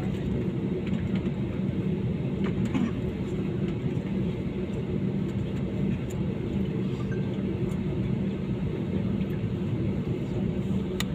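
Steady drone of an airliner heard from inside the cabin: engine and airflow noise with a low, even hum that does not rise or fall.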